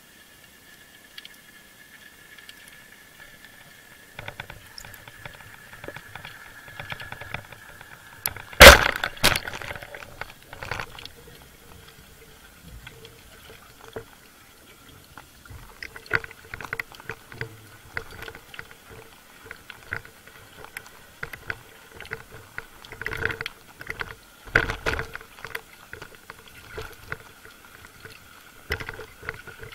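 Underwater sound of a speargun firing: one loud sharp crack about nine seconds in. It is followed by scattered clicks and knocks from the shaft and its line while a speared fish struggles on the shaft.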